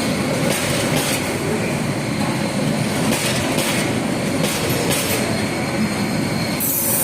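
Kishoreganj Express passenger train running on the track: a steady rumble with a short rattle recurring every second or two.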